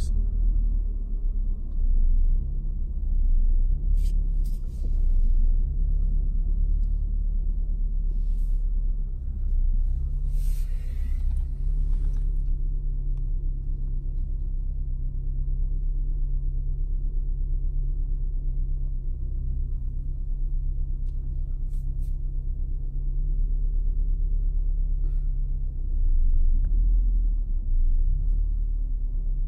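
Car engine running at low speed, heard from inside the cabin as a steady low rumble and hum. A few brief rustles or clicks come through about 4 and 11 seconds in.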